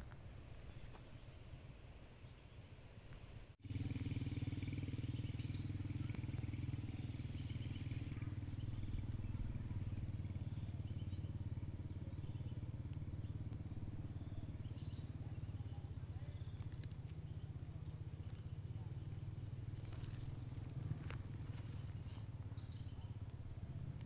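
Steady, high-pitched chorus of insects chirring continuously, over a steady low hum. It starts abruptly about four seconds in; before that only faint background.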